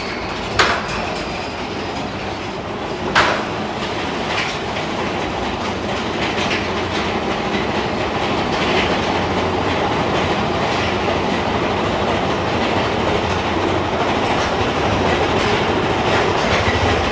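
Mine-train roller coaster cars running on the track, wheels rattling and clacking steadily, with two sharp clanks in the first few seconds.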